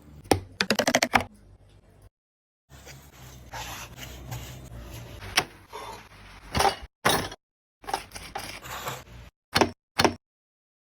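Kitchen handling sounds: a quick run of clicks about a second in, then a few seconds of scraping and rustling broken by sharp knocks, and a few separate knocks near the end.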